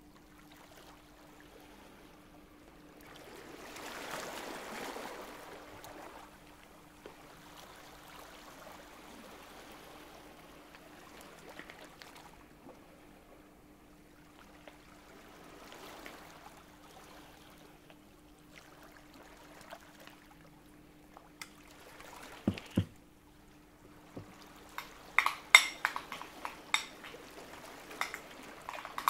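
Quiet kitchen sounds: liquid poured or trickling for a couple of seconds about four seconds in, over a faint steady hum. Near the end come a couple of soft knocks, then a run of light clinks of utensils against dishes.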